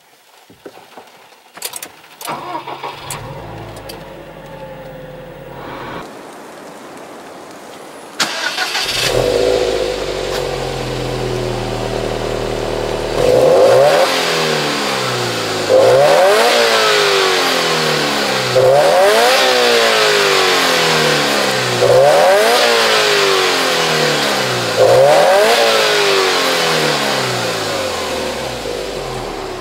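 Subaru WRX STI's turbocharged flat-four (boxer) engine heard at the exhaust: after a few clicks, it starts about eight seconds in and settles into a steady idle. It is then free-revved five times, each a quick rise in pitch falling back to idle.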